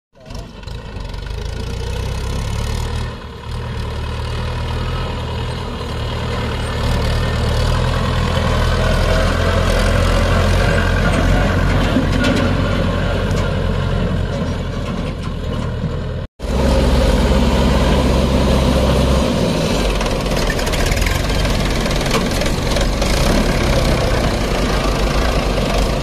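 Mahindra 575 tractor's diesel engine running as it hauls a loaded trolley along a dirt track, getting louder as it approaches. After a brief cut about two thirds of the way in, a diesel engine runs steadily and louder, close by.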